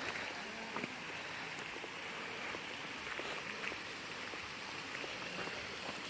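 Steady rush of running water, with scattered faint clicks over it.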